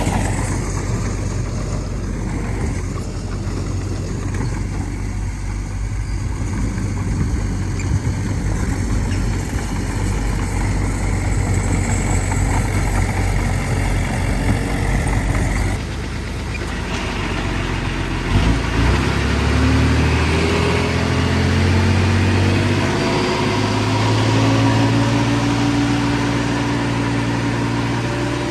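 Diesel engine of heavy earthmoving machinery running steadily. About halfway through the sound changes abruptly, and then an engine revs up, its pitch climbing and holding higher.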